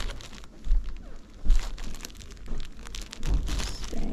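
Plastic packaging of a sealed bedding set crinkling as it is handled, with rustling of folded linens and three dull low thumps from handling.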